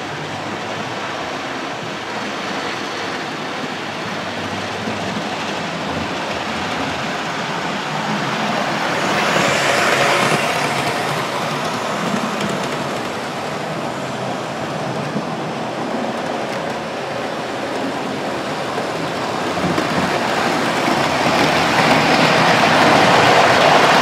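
Model trains running on a layout: a steady rumble of wheels on track and motors, swelling about ten seconds in and growing louder near the end as a train passes close by.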